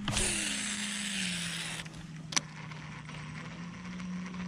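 Fishing reel whirring for a little under two seconds, as on a cast, with a single sharp click a little later. A steady low hum runs underneath.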